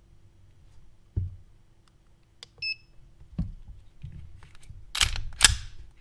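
A Lyman digital trigger pull gauge gives a short electronic beep, with a low knock before it and a thud after. Near the end the Glock 34's slide is racked back and let go, two sharp metallic clacks about half a second apart that reset the trigger for the next pull measurement.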